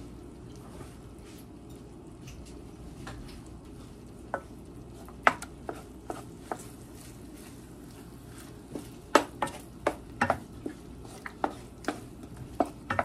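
Wooden spoon stirring and scraping egg in a nonstick pan, with sharp taps of the spoon on the pan: a few scattered ones at first, then many in quick succession in the last few seconds.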